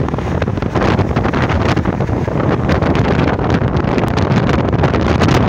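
Wind buffeting the microphone from a moving car, with road noise underneath: a loud, steady noise with no clear tones.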